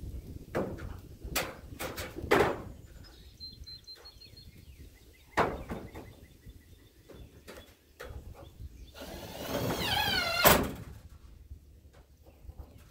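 Metal roof panels and lumber being handled during roofing work: a scattered series of knocks and thunks. Near the end a brief wavering tone runs just before the loudest knock.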